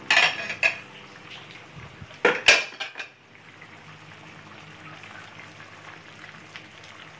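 A cooking utensil clatters against the pan a few times in the first three seconds, then a pot of pork menudo stew simmers with a soft, steady bubbling.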